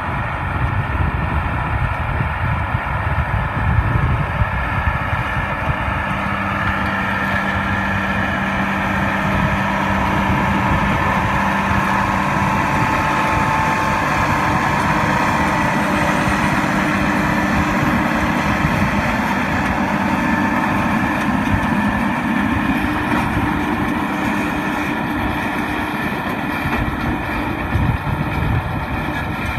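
White 6710 tractor engine running steadily at working speed, pulling a Massey Ferguson 1745 round baler in hay.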